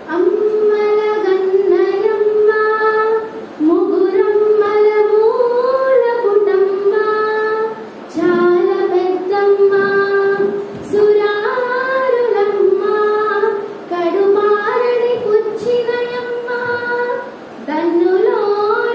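A high voice chanting a Telugu padyam (traditional verse) in a slow, melodic style. The notes are held and glide, in about five phrases with short breaks for breath between them.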